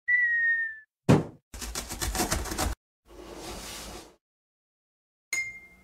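A string of cartoon sound effects for an animated intro. A short whistle-like tone dips slightly, then a sharp thump, about a second of rapid rattling, a whoosh, and a short click with a brief ring near the end.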